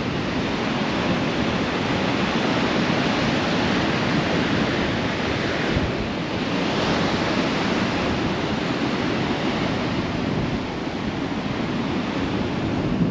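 Surf from a big swell breaking and washing on a sandy beach, with wind buffeting the microphone. A wave surges louder about halfway through.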